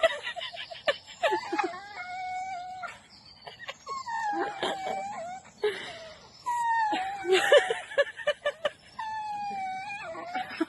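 An animal giving about four drawn-out whining calls, each about a second long and slightly falling in pitch, with short clicks and rustles between them.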